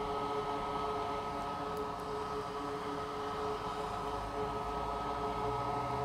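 A small fan or motor running steadily: a constant high whine and a lower tone over a hiss, with a low hum coming in about four seconds in.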